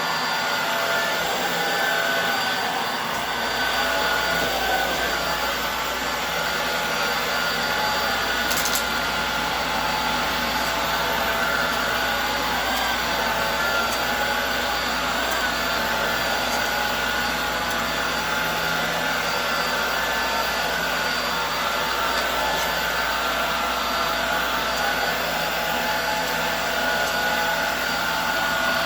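Hoover Air Steerable upright vacuum cleaner running steadily while vacuuming a rug, its motor whine holding a slightly wavering pitch. A single brief click comes about nine seconds in.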